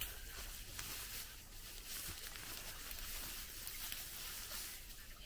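Faint scratching and rustling of gloved hands digging through dry soil and dead grass by hand, unearthing potatoes.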